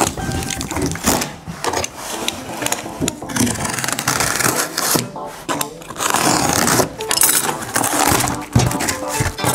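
Cardboard box and packaging rustling, crackling and scraping as a laptop stand is pulled out by hand, with many sharp clicks throughout.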